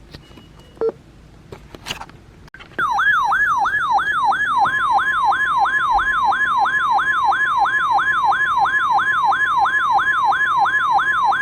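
Emergency alert tone: after a few faint clicks and short beeps, a loud siren-like warble starts about three seconds in. It sweeps up and down about three times a second over a steady tone near 1 kHz, heralding the next weather warning.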